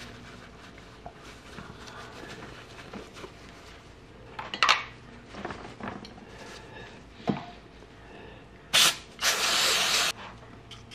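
Aerosol brake cleaner sprayed through a straw nozzle: a short blast, then a hiss of about a second near the end. Before that, quiet rustling of paper towel and handling of small metal parts, with a few light knocks.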